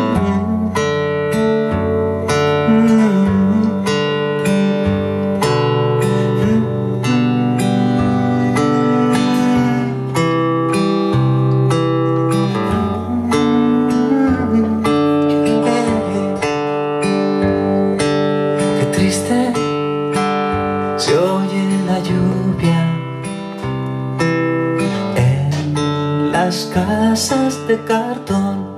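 Solo acoustic guitar strumming chords in an instrumental interlude between sung verses.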